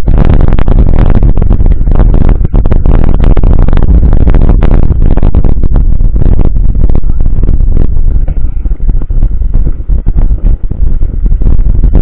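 Heavy wind buffeting on a mountain-bike action camera's microphone, mixed with constant knocks and rattles as the bike jolts over a rough dirt road. Loud throughout, easing a little about eight seconds in before picking up again near the end.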